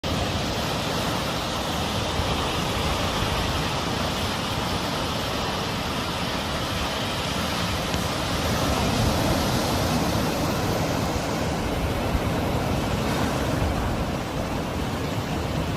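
Sea surf: waves washing in a continuous rush of noise that swells a little about nine seconds in.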